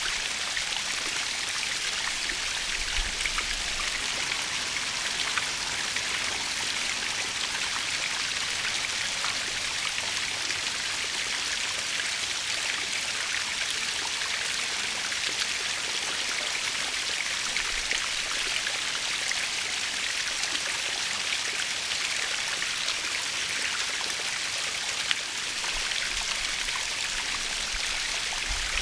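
Natural waterfall: falling water splashing in a steady, even hiss.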